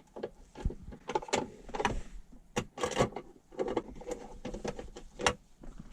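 Hands starting bolts into a car's plastic center console trim: irregular small clicks, taps and rubbing.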